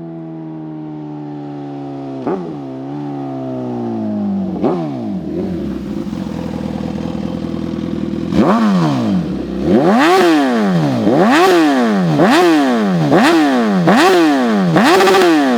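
Suzuki GSX-S1000's inline-four engine running through a full titanium exhaust with a GP Titânio Especial tip, which has a more aggressive roar. It idles with a couple of single throttle blips, then, from about halfway, gives a quick run of about eight sharp revs, roughly one a second, each rising and falling.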